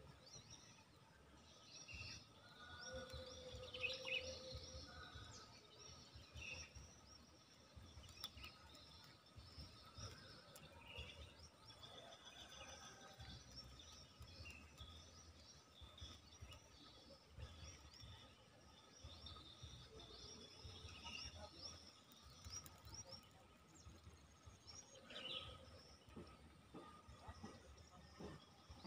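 Near silence: faint rural ambience with scattered short bird chirps and calls, over a low rumble.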